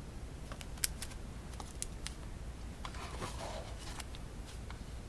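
Light taps and clicks of playing-card deck boxes being handled and set down, a few separate ticks with a brief soft rustle about three seconds in.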